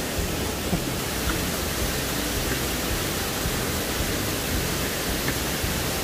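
Steady, even rush of water from a waterfall.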